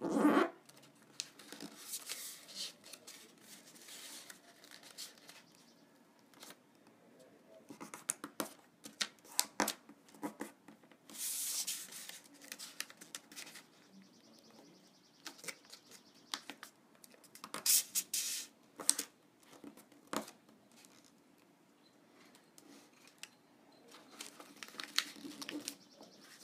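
A sheet of origami paper being folded and creased by hand: scattered rustles, crinkles and short scrapes as fingers press along the folds, with a longer swish a little before the middle.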